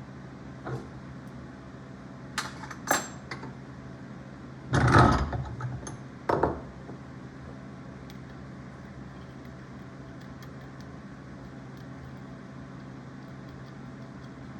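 Brass pipe fittings and small hand tools clinking as they are handled: a few light metallic clicks, then a louder clatter about five seconds in and another a moment later, over a steady low hum.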